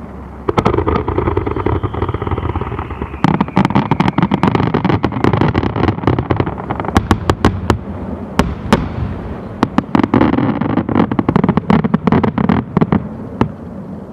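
Aerial fireworks shells bursting in quick succession, heard from about 500 m away: many sharp bangs over a continuous rumble, coming thicker from about three seconds in and thinning out near the end.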